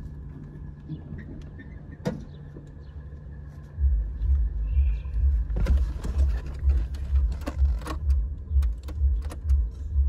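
Tofaş Doğan SLX four-cylinder engine idling with a rhythmic, pulsing low beat, about two a second. The beat is faint for the first few seconds and louder from about four seconds in, with a few sharp clicks over it.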